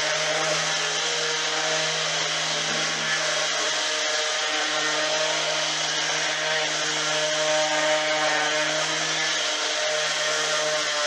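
Electric random orbital sander running steadily as it sands a hardwood seat frame with 80-grit paper, the motor hum shifting a little in pitch as pressure on the pad changes.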